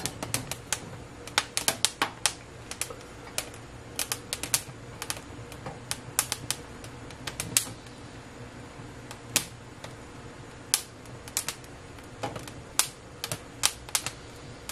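Chile peppers, poblanos, crackling and popping as their skins blister and char directly over open gas-burner flames. The pops are sharp and irregular, several a second at times, over the soft steady rush of the burners.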